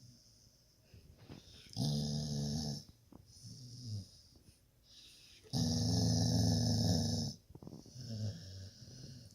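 A dog snoring in its sleep: a loud snore about two seconds in and a longer, louder one near the middle, with softer breaths between them.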